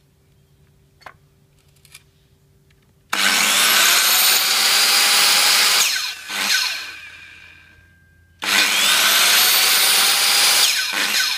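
Hitachi Koki C6BE corded circular saw test-run with no cut, switched on twice. Each time the motor whines up to speed, runs steadily for about three seconds, surges briefly once more as it slows, then spins down. Two small clicks come in the second before the first start.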